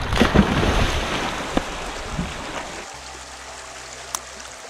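Heavy splashing of people thrashing and plunging in a shallow river, dying down after a second or two into the steady rush of flowing river water, with one sharp click near the end.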